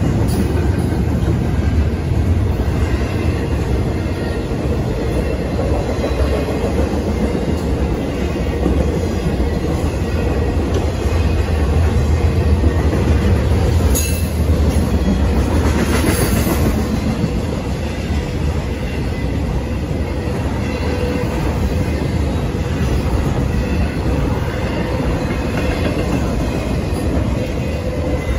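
Intermodal freight train of double-stack containers and trailers on flatcars rolling steadily through a grade crossing, its wheels rumbling and clacking on the rails. A couple of brief, sharper high sounds stand out about halfway through.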